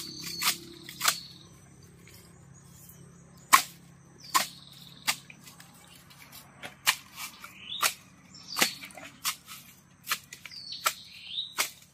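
Irregular sharp chops, roughly one or two a second, of a machete cutting into the frond bases of an asam paya palm to get at the palm heart. Birds chirp near the start and near the end.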